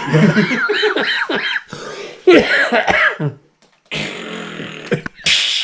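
A man coughing and clearing his throat, in two bouts without words.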